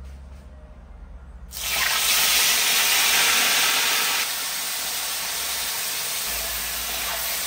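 Seasoned chicken pieces going into hot oil in a large pot and sizzling: a loud, steady hiss that starts suddenly about a second and a half in, strongest for the first couple of seconds, then settling a little.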